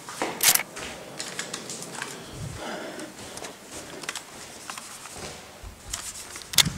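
Footsteps scuffing and crunching over plaster debris on a hard floor, with small clicks and rustles, and two sharper knocks about half a second in and near the end.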